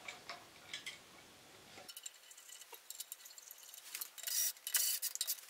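Small metallic clicks, scrapes and rattles of hand tools and bolts as a replacement ignition coil (magneto) is bolted loosely onto a small engine. The clicking is busiest and loudest in the second half.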